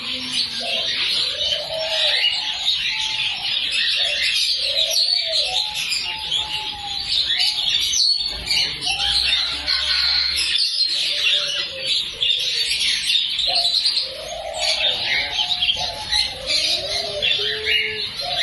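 Many caged birds chirping and twittering continuously, with low cooing calls rising and falling about once a second.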